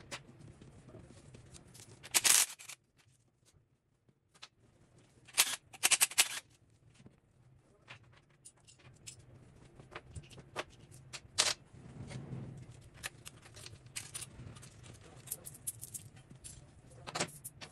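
Clinks and knocks of hand tools and metal engine parts being handled while an engine is taken apart, with several sharp loud clacks and a quick cluster of clicks, over a steady low hum.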